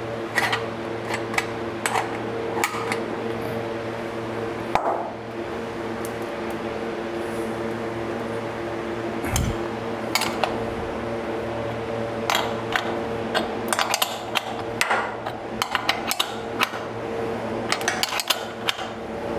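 Steel spanner clicking and clinking on the nuts and bolts of a steel bench bracket as the bolts are tightened by hand: scattered sharp clicks, coming thick and fast in the second half. A steady hum runs underneath.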